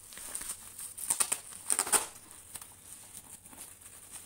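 Bubble wrap and plastic parcel wrapping crinkling and tearing as it is pulled and cut away from a cardboard box, with the loudest crackles about one and two seconds in.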